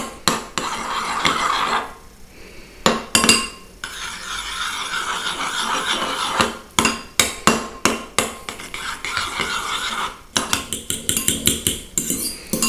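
Metal spoon stirring an egg-and-mayonnaise mixture in a ceramic bowl, scraping and clinking against the bowl's sides. Near the end it turns to quick beating, the spoon tapping the bowl about six times a second.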